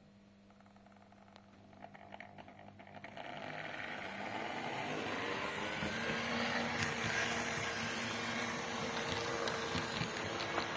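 Märklin V200 (BR 221) model diesel locomotive's sound module playing its diesel engine sound: a few clicks, then the engine builds up over a couple of seconds and settles into a steady running sound with a steady hum in it.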